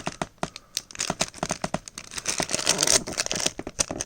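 A plastic blind-bag packet being crinkled and torn open by hand: a run of sharp crackles and clicks, with bursts of rustling about a second in and again near three seconds.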